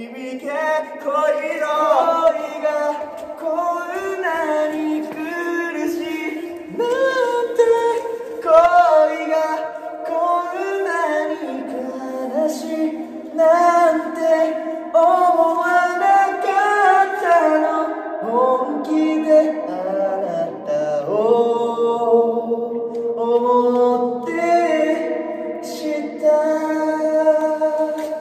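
A Japanese pop love song sung over backing music, the melody running on without a break.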